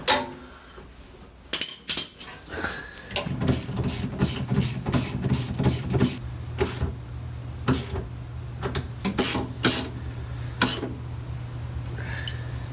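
Ratchet wrench tightening the fuel tank strap bolts: a quick run of regular sharp clicks, after a few knocks at the start. A steady low hum runs under the clicks from about three seconds in.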